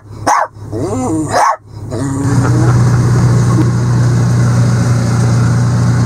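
Small terrier barking sharply a few times in a pickup cab. From about two seconds in, an engine idles steadily in its place.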